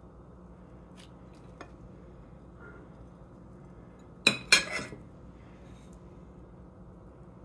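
Ceramic dishes clinking: a small china saucer knocks twice in quick succession against the plate a little past halfway, after a few faint ticks, over a low steady hum.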